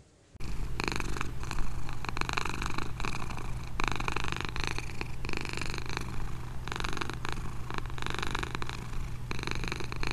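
Domestic cat purring close up, starting about half a second in and swelling and easing in a slow rhythm with each breath, roughly every second and a half.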